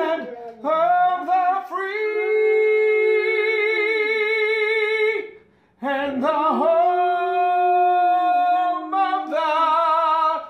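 Dog howling: two long, wavering howls, the second starting about six seconds in.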